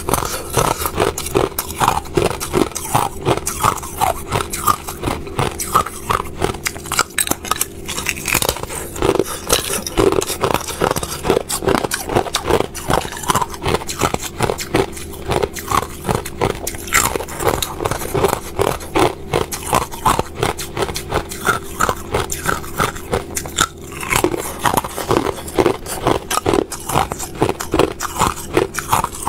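Thin sheets of clear ice being bitten and chewed close to the microphone: a continuous run of crisp crunches and cracks as the ice snaps between the teeth, over a steady low hum.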